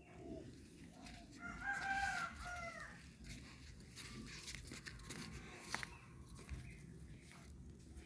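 A rooster crowing once, a single call of about a second and a half, heard about two seconds in. A few faint clicks and taps follow.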